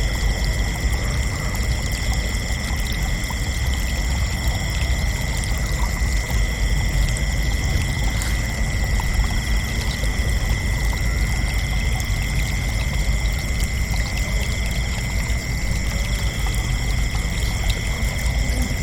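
Crickets chirping in one continuous, steady high-pitched trill, over a constant low rushing noise.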